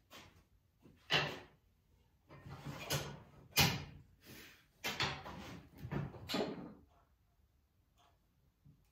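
An irregular series of short scraping and knocking noises from off-camera handling of wood and tools, about six of them, stopping about seven seconds in.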